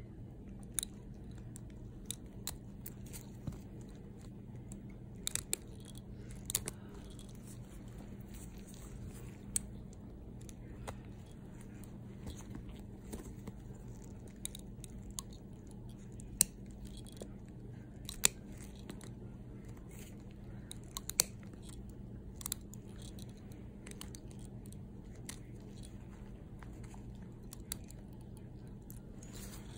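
Toenail nippers cutting through thick, crumbly toenail thickened by fungal infection: irregular sharp clicks and crunches, a few of them louder, over a steady low hum.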